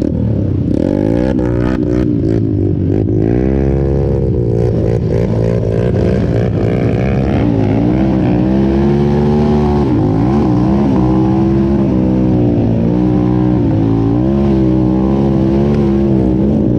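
A vehicle engine running under load. Its pitch rises and falls several times as the throttle and gears change.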